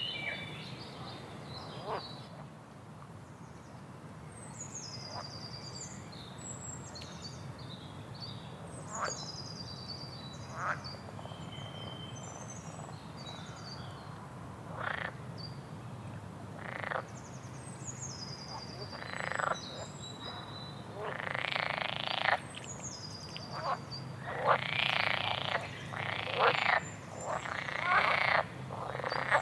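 A songbird singing short, high, falling phrases every few seconds, mixed with short, harsh, noisy calls that come more often and louder in the second half. A low steady hum runs underneath.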